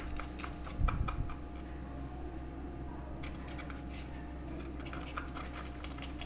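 Kitchen knife sawing through a toasted bread snack topped with crunchy aloo bhujia, giving clusters of short crisp crackles and scrapes as the blade cuts the toasted crust and rubs the ceramic plate. A dull knock about a second in.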